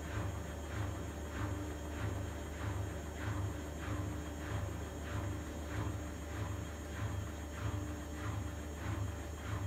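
Vestel CMI 9710 front-loading washing machine running on its spin cycle: a steady low motor hum with a regular swish of the turning drum about one and a half times a second.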